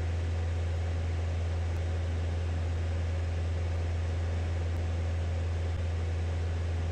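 Steady in-cabin drone of a single-engine light aircraft's piston engine and propeller in flight: a constant low hum with an even hiss of airflow over it.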